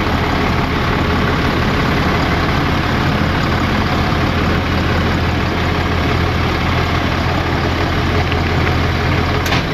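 Ram heavy-duty tow truck's engine running steadily at low revs as the truck creeps slowly forward, a constant low drone with no change in pitch.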